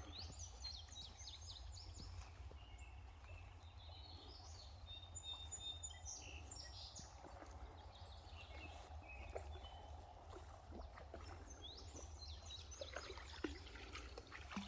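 Faint songbirds chirping and singing in short phrases, in clusters near the start, in the middle and again near the end, over a steady low rumble.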